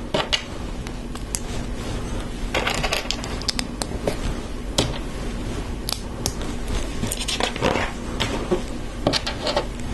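Plastic LEGO bricks being handled and snapped together: scattered sharp clicks and small clattering taps, some in quick clusters, over a steady faint hum.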